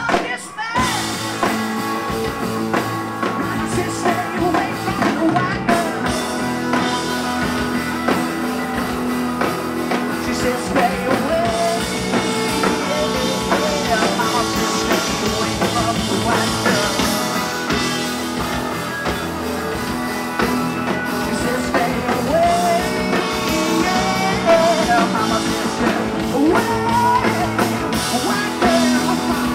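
Live rock band playing: electric guitars over a drum kit, loud and steady.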